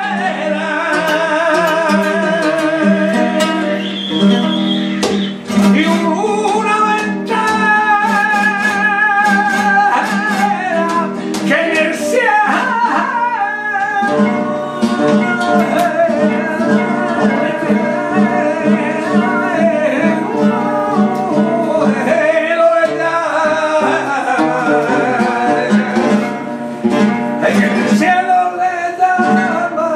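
A man singing flamenco cante in the serrana style, long drawn-out phrases with a wavering voice, accompanied by a flamenco guitar plucking and strumming beneath.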